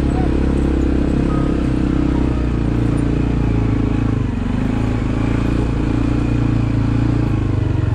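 CF Moto 450 ATV's single-cylinder four-stroke engine running steadily at low speed under load as the quad climbs a rocky forest trail.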